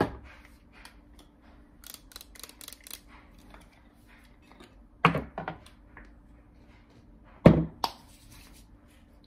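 Skincare bottles being handled on a counter: a quick run of light clicks, then two louder knocks as a plastic bottle is set down, over a faint steady hum.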